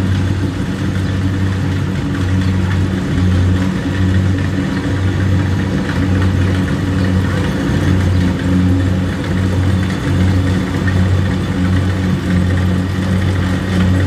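Kubota DC-70Plus combine harvester's diesel engine running steadily as the machine cuts through standing rice, a loud low hum that swells and dips gently.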